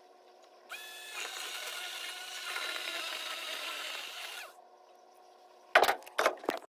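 A power tool's motor spins up with a rising whine and runs for about four seconds before stopping. A few sharp, loud knocks follow near the end.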